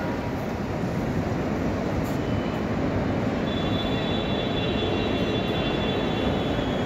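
Steady roar of traffic and crowd noise under an airport terminal's departure-kerb canopy, with a car passing close. A steady high whine joins about three and a half seconds in.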